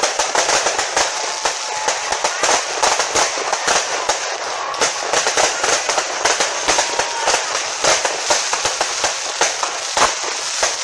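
Fireworks going off in rapid succession: a dense, continuous crackle of sharp pops and bangs, several a second, with one louder bang about ten seconds in.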